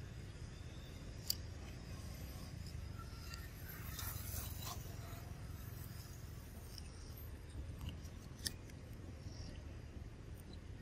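Long-tailed macaque biting and chewing a piece of crisp fruit: a few sharp crunchy clicks and a short crackly stretch about four seconds in, over a low steady rumble.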